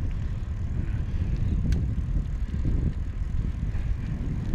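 Wind buffeting the microphone of a camera carried on a moving e-bike: a steady low rumble, with one faint click about a second and a half in.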